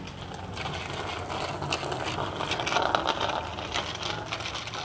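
A child's small bicycle with training wheels rolling over asphalt, the wheels rattling and clicking. It is loudest about three seconds in, as the bike passes close.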